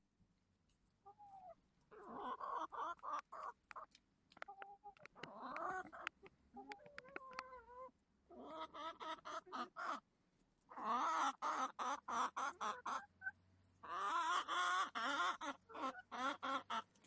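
Chickens clucking in bouts of rapid, repeated short calls, several in close succession, with brief pauses between bouts.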